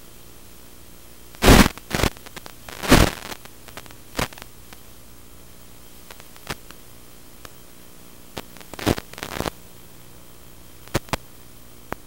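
Steady static hiss broken by sudden bursts of crackle from an analog FPV video receiver's audio: a loud cluster in the first few seconds, another around nine seconds in, and two short clicks near the end. This is radio interference on the video link.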